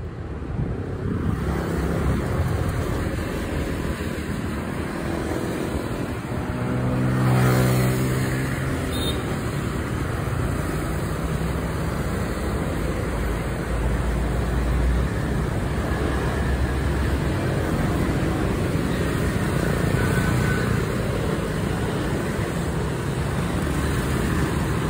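Steady road traffic noise from motorbikes and cars along a busy street. One engine passes close, loudest about seven and a half seconds in.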